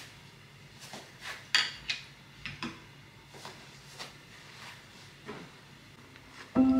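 Household handling sounds: scattered light knocks and taps of dishes and cupboards, with a sharp ringing clink about a second and a half in and another just after. Music with mallet-like notes starts right at the end.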